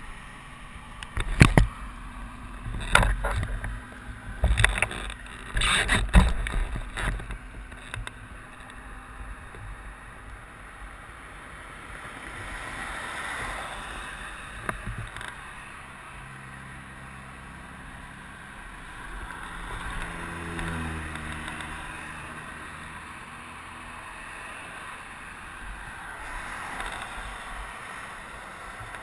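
A helmet-mounted action camera being handled, with several loud knocks and thumps in the first seven seconds. Then a steady rumble of highway traffic, with cars passing in slow swells about three times.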